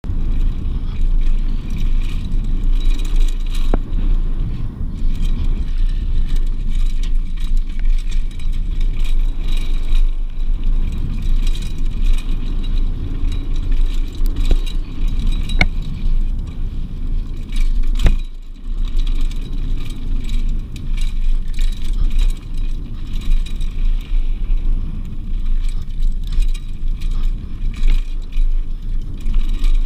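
Mountain bike riding fast down a dirt trail: a steady rumble of tyres on the ground and wind on the microphone, with the bike rattling over bumps and a few sharp knocks, the loudest about eighteen seconds in.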